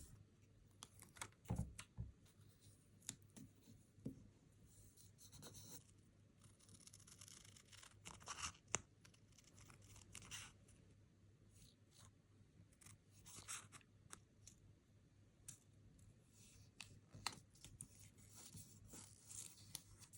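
Quiet sticker-collage work with paper and stickers: scattered small taps and clicks, and short stretches of rustling and scratching as stickers are handled, peeled and pressed down.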